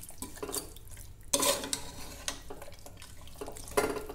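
Metal spoon stirring raw chicken marinade of yogurt and spices in a cooker pot, with scraping, and two sharp clanks of the spoon against the pot, one a little over a second in and one near the end.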